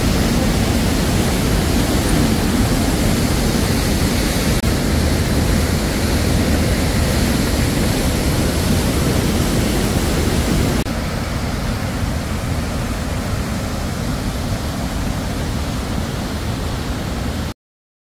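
Steady rushing of a waterfall cascading over rock ledges. About eleven seconds in it drops to a quieter rush, and it cuts off to silence just before the end.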